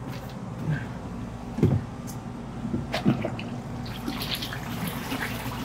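Water sloshing and a few light plastic knocks as a milk crate of filter media is set down inside a plastic trash-can filter bin, over a steady low hum.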